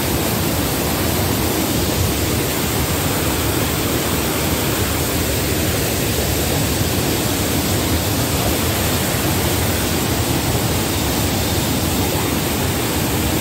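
Muddy flash-flood water rushing over boulders in a swollen jungle stream below a waterfall: a steady, loud rush of floodwater brought on by heavy rainfall.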